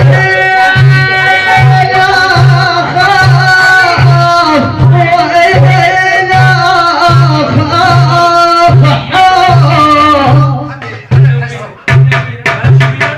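Music: a wavering melody over a steady low beat, with sharper drum hits coming in near the end.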